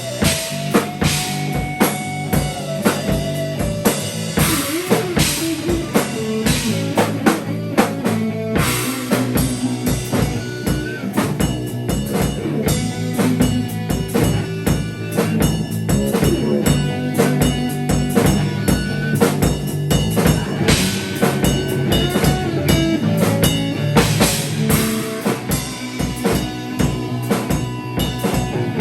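Live band improvising: a drum kit keeps a steady groove under bass notes and sustained melodic lines.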